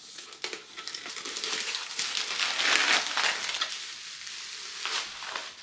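Potting soil crunching and rustling as it is handled and loosened while a monstera is repotted, a dense crackle of small grainy clicks that is loudest about three seconds in.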